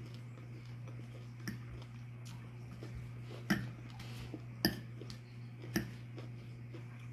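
Metal fork clinking against the serving bowl while picking up salad and chicken: four sharp, irregular taps, the loudest two a little past the middle, over a steady low hum.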